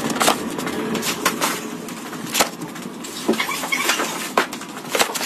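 Cardboard parcel boxes knocking and thudding as they are carried, stacked and set down: several short sharp knocks spread through, over a steady background noise.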